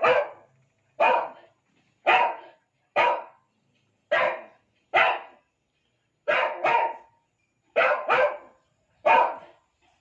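A dog barking repeatedly, about one bark a second, a few of them in quick pairs.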